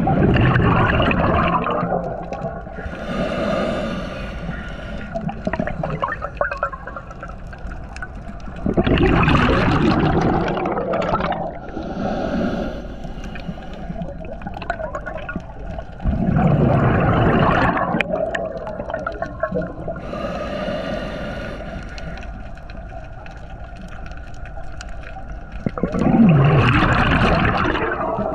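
A scuba diver breathing through a regulator, heard underwater through a camera housing: four loud bubbling exhalations about eight seconds apart, with fainter hissing inhalations between them.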